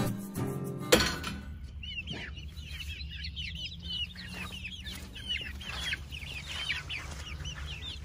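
Young pullets, about 11 to 12 weeks old, peeping and chirping in quick, repeated high calls, several a second, over a low steady hum. Acoustic guitar music plays at the start and stops with a sharp click about a second in.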